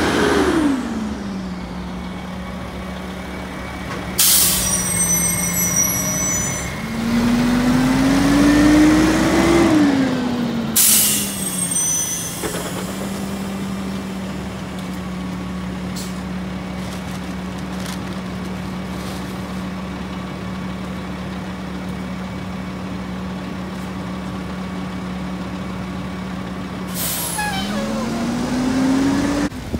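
Mack LE garbage truck's diesel engine slowing, pulling forward and slowing again, with two sharp air-brake hisses, the first with a high squeal. It then idles steadily for about fifteen seconds, and near the end it speeds up again with another hiss.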